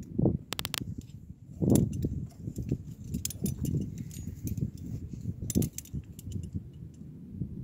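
Metal climbing hardware (carabiners and quickdraws on a harness) clinking and jangling in scattered small clicks as the climber moves, over a low rumble of wind and handling noise on the microphone.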